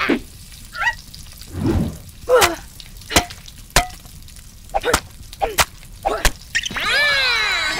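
Stop-motion sound effects: a string of sharp wooden knocks, roughly one every half second to second, with short cartoon squeaks between the early ones. Near the end comes a longer squeaky cartoon cry that rises and then falls in pitch.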